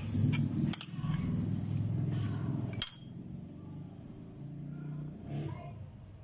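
A few sharp clinks of a metal spoon against a ceramic plate over a low rumbling hum, which drops away after about three seconds.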